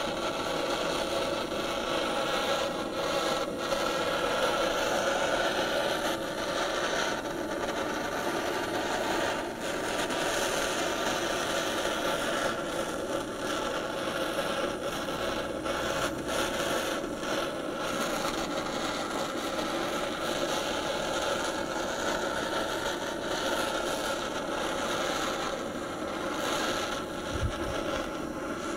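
Handheld gas torch burning with a steady hiss. Its flame is held on the metal of a motorcycle rear-wheel cush drive hub, warming it so the hub expands around the oil seal.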